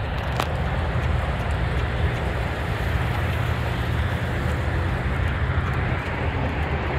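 Steady rumble of road traffic passing close by, with one short sharp tick about half a second in.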